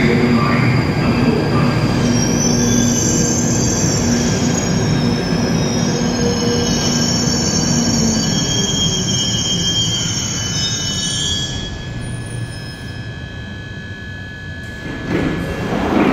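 London Underground 1995 Stock tube train braking into the platform: the rumble of wheels on rail with high, wavering wheel squeal that dies away as it comes to a stop about eleven seconds in. After that the standing train gives a steady hum, and a short burst of noise comes near the end as the doors slide open.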